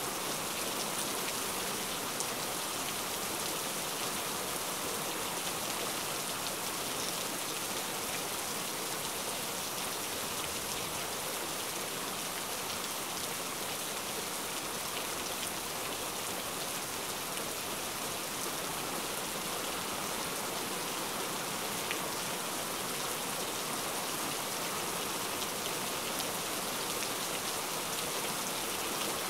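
Heavy rain falling steadily, a dense even hiss with many small drop ticks.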